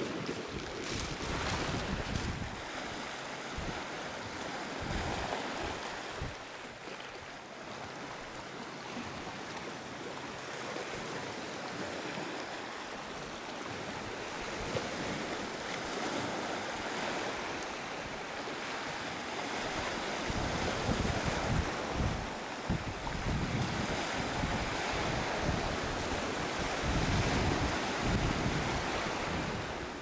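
Small sea waves washing onto a pebble beach and splashing over rocks, with wind buffeting the microphone in low gusts, strongest in the second half.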